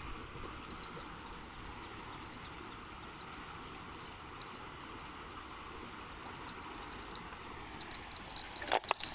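Insects chirping: a steady, high, pulsing trill over a soft hiss, with a few sharp clicks near the end.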